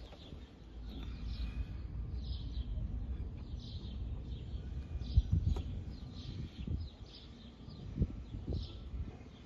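Small birds chirping over and over, in short falling chirps, over a low background rumble. A few sharp knocks come through, the loudest about five seconds in.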